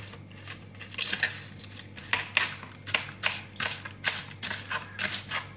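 Kitchen knife chopping vegetables on a plastic cutting board: a steady run of short knocks, about three a second, starting about a second in.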